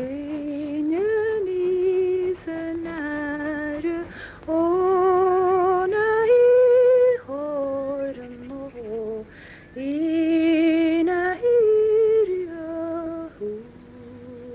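A woman's voice singing a slow melody in long phrases, holding notes with vibrato and stepping between them.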